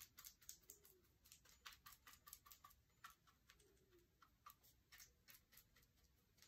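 Faint, quick taps of a paintbrush pouncing paint onto a lamp base, several taps a second, building a textured coat.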